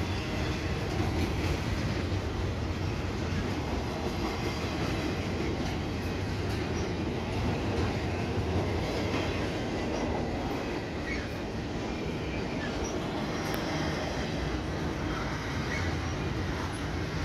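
Double-stack intermodal freight train rolling steadily past: a continuous rumble of wheels on rail from the loaded container well cars, with a few brief faint high squeaks.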